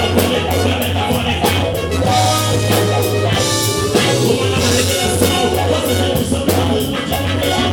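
Live band playing an instrumental passage: drum kit with a steady beat, bass and other instruments, with no clear vocal line.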